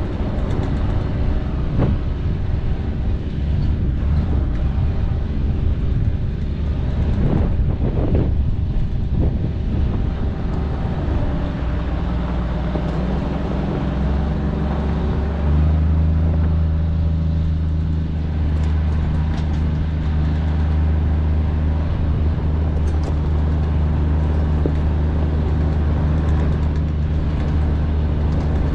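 Vehicle driving over a dirt and gravel track: engine and tyre rumble, uneven with a few jolts in the first half, then settling about halfway through into a steady low drone.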